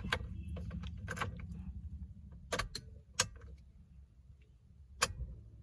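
A handful of short, sharp clicks and taps, about six, spread irregularly over a low steady hum inside a car cabin.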